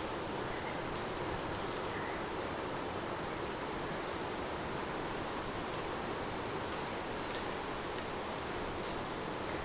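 Steady rain ambience: an even, unbroken hiss, with faint short high chirps now and then.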